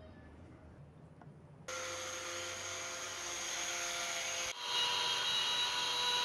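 Faint room tone with a few light knocks, then about 1.7 s in a steady machine whir with several high, steady tones cuts in abruptly. Its tones shift at a second abrupt change about 4.5 s in.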